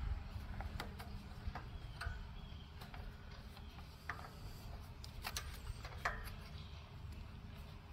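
Scattered light clicks and taps of a plastic air-filter housing being handled and pushed into place on a small engine, over a low steady background rumble.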